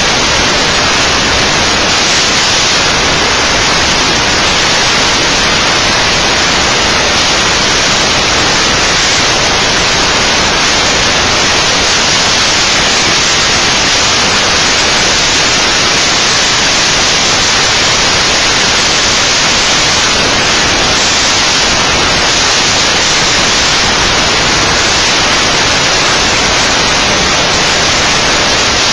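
Loud, steady static hiss, an even wash of noise that switches on abruptly just before and holds flat throughout. It is typical of a webcam microphone's audio glitching into static, and it drowns out any other sound.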